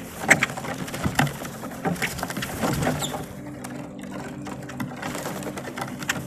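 Boat-tailed grackles calling: sharp clicks and short harsh notes, spaced a second or so apart, over a steady low hum.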